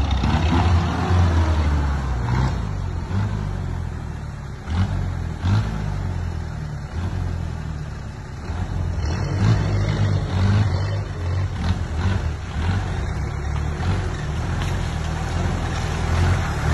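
Off-road 4x4 engines running and revving at low speed as the vehicles crawl through mud and grass, the engine note rising and falling with the throttle.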